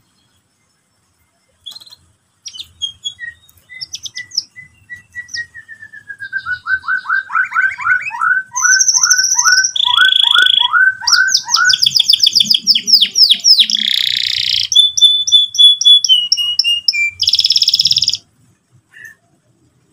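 Domestic canary singing a long song of fast rolling trills, including a run of repeated down-slurred notes and buzzy phrases. It starts about two seconds in and stops shortly before the end.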